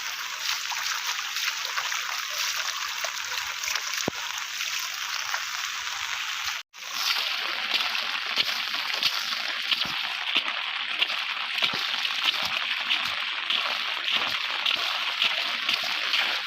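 Rushing and splashing water, a steady watery hiss. About seven seconds in the sound briefly cuts out, and after it short splashes come again and again over the hiss, as feet slosh through shallow water.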